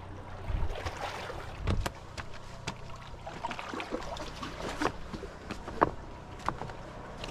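Sea water splashing and sloshing with scattered knocks and clicks, two heavier thumps in the first two seconds, over a low steady hum.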